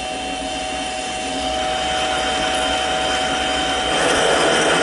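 Mini lathe running with a steady whine while its parting blade cuts into a spinning 1-1/4-inch 1018 steel rod. An oil brush is held against the turning work, and a rougher scraping noise swells about four seconds in.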